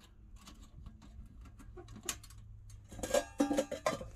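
Scattered light ticks and rustles, then about three seconds in a short cluster of metal clinks and clatter as the black kettle on the small steel wood stove is handled.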